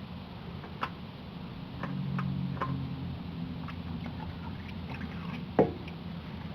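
Oil filter being worked loose and removed by hand, with scattered small clicks, ticks and drips of oil into the catch bucket. A sharper knock comes about five and a half seconds in, over a steady low hum.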